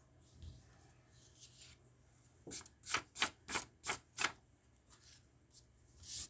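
Hand and forearm brushing crumbs off a hardboard drawing board: six quick rubbing sweeps, about three a second, then a single paper swish near the end as the sheet is laid back down.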